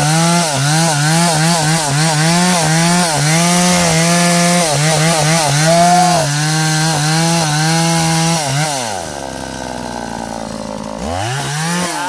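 Stihl chainsaw at full throttle, cutting into the base of a standing teak trunk; the engine note dips slightly again and again as the chain bites. About eight and a half seconds in it drops back to idle, then revs up briefly again near the end.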